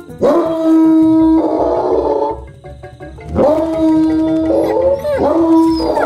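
Cartoon superb lyrebird mimicking a dog's howl: three long howls, each swooping up at the start and then held on one steady note, over background music.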